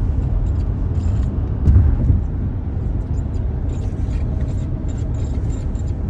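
Steady low road and engine rumble inside a 2023 Kia Sorento's cabin while driving, with short, faint, high-pitched squeaks from the steering wheel now and then.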